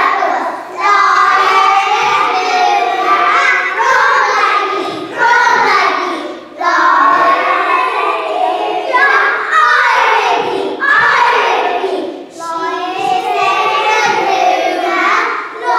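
A group of young children singing together, in short phrases with brief dips between them.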